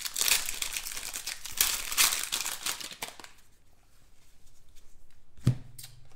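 The foil wrapper of a 2017 Prestige football card pack being torn open and crinkled: a dense burst of crackling over the first three seconds. Quieter handling of the cards follows, then a single sharp click about five and a half seconds in.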